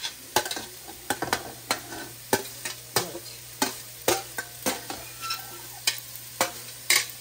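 Metal spoon scraping and knocking against a stainless steel platter as chopped vegetables are pushed off it into a pot, with a sharp clink about twice a second.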